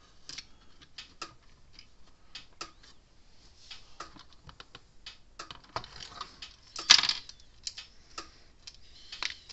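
Small metal hardware being handled: washers, a bolt and a nut clicking and clinking against each other and the plastic case as they are fitted to a capacitor mount, with a louder clatter about seven seconds in.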